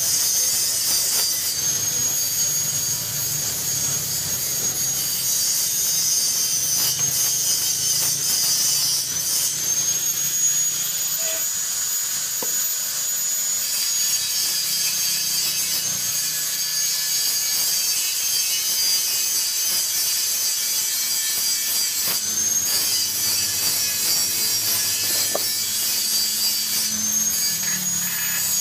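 Stick welding with a small Ndeve 160 A inverter welding machine: the arc sizzles and crackles steadily over a thin high whine. The sound breaks and shifts in tone every few seconds as the arc is struck again or the rod is moved.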